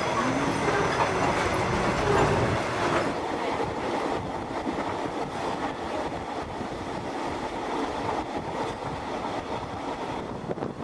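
Passenger train coaches rolling past, their wheels rumbling on the rails. About three seconds in it changes abruptly to a quieter, steady running noise of a train in motion.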